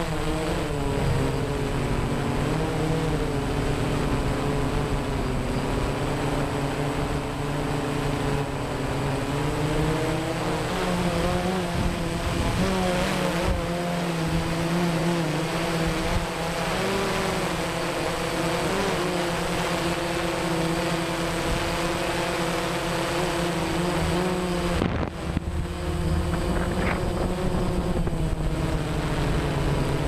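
A small multirotor drone's motors and propellers running steadily, heard from its own onboard camera, with a hum whose pitch wavers slightly as it manoeuvres, under a hiss of wind. The sound breaks off briefly about 25 seconds in and then carries on.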